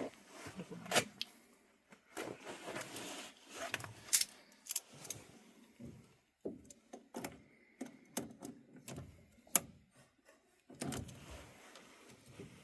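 Irregular sharp clicks, taps and rustling of hands and tools working plastic tubing and fittings on a furnace, as a tube is pulled off a port. There are about four louder clicks.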